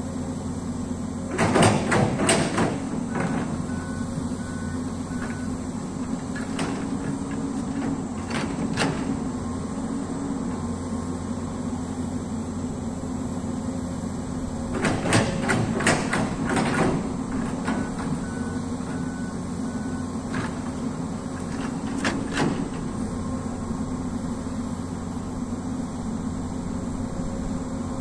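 Diesel engine of a Komatsu amphibious long-arm excavator running steadily under working load, with clusters of clanking knocks from the machine about a second and a half in and again around fifteen to seventeen seconds in as the arm and bucket dig.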